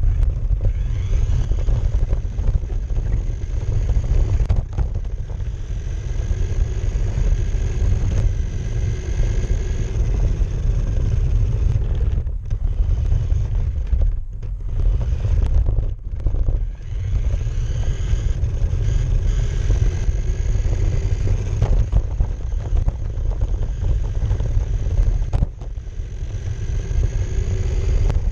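Radio-controlled car driving over pavement, heard from on board: heavy rumble of tyres and chassis on concrete and asphalt, with a high motor whine that rises and falls with the throttle. The sound drops away briefly a few times around the middle as the throttle is let off.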